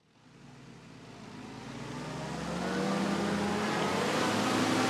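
Vintage military jeep's engine running under load. It fades in from silence and grows steadily louder over about three seconds, its pitch rising slightly.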